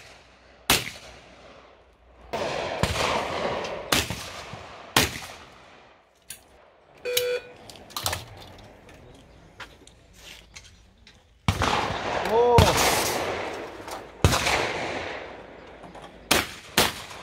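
Over-and-under shotgun shots at clay targets, about ten over the stretch, some as pairs about a second apart, each shot trailing a long rolling echo.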